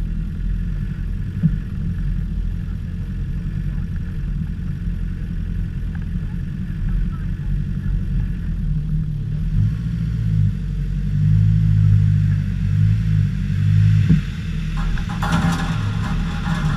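Land Rover Discovery engine running at low revs as the vehicle creeps along a muddy, rutted track, its low rumble swelling and easing with the throttle. Near the end a crackly, scratchy noise joins in.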